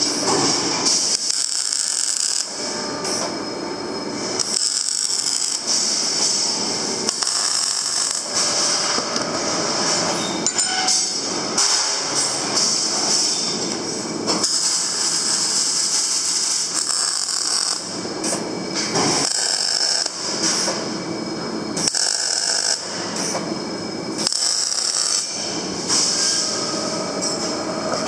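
MIG welding on steel rods: a loud, crackling hiss from the welding arc, going in a series of short runs that start and stop abruptly.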